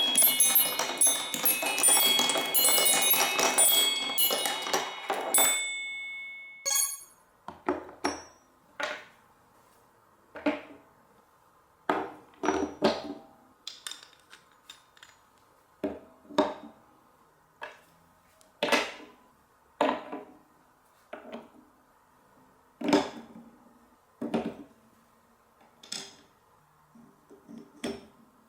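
Marbles running down a block marble run. For the first five seconds or so there is a dense, bright tinkling and chiming, which then cuts off. After that come single clacks of marbles knocking along the blocks, about one a second, each ringing briefly.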